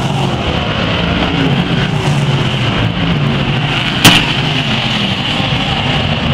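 A pack of BriSCA Formula One stock cars racing past with their V8 engines running hard, pitch rising and falling as they go by. One sharp crack about four seconds in, as a car passes close.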